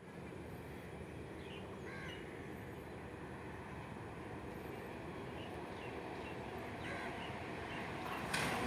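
Distant approaching electric train, a steady rumbling noise that slowly grows louder, with birds calling a couple of times. Near the end the train noise swells suddenly.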